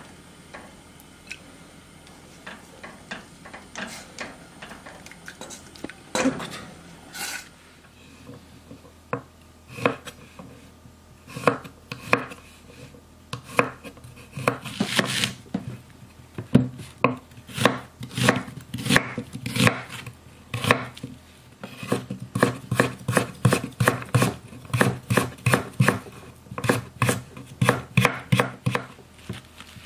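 Kitchen knife slicing garlic cloves and a carrot on a wooden cutting board: sharp strokes of the blade hitting the board, sparse at first, then dense and steady at about two to three a second through the second half.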